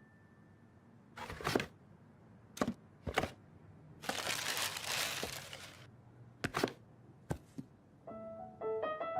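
Cartoon sound effects: a handful of short clicks and knocks, with a longer hissing rush about four to six seconds in. Light plinking music, like a glockenspiel, starts near the end.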